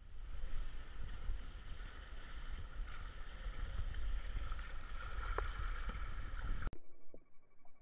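Kayak forward paddle strokes, heard from a camera at the waterline: water washing and sloshing over a low rumble, with one sharp knock or splash about five seconds in. The sound cuts off abruptly near the end, giving way to a quieter, muffled background.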